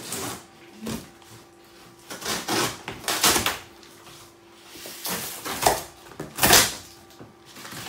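A parcel being unpacked by hand: its yellow wrapping tearing open and cardboard flaps scraping and rustling, in a run of short, irregular noisy bursts.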